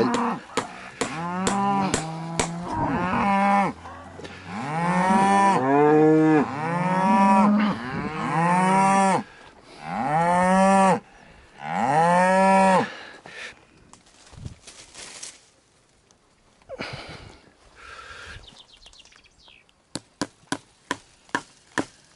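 Cows mooing over and over, long loud calls one after another through the first dozen seconds, then a few fainter ones. The cows are answering the farmer's voice, which they take for a call. Near the end there is a quick run of sharp knocks, about three a second.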